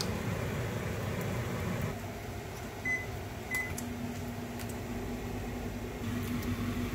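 A kitchen appliance giving two short electronic beeps about three seconds in, then starting a steady low hum, over a background rumble that drops away about two seconds in.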